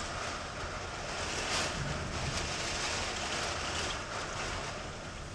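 Strong storm wind with driving rain, rushing steadily and swelling in gusts for a couple of seconds in the middle, with wind buffeting the microphone.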